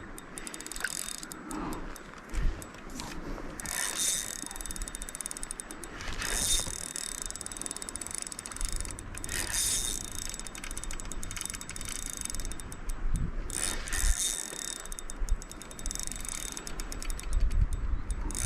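Fishing reel clicking in repeated bursts of rapid ratchet clicks while a hooked rainbow trout is being fought, the fish pulling and the line being worked against it.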